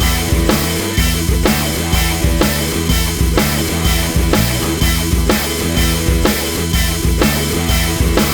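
Rock backing music with a driving drum kit beat and bass.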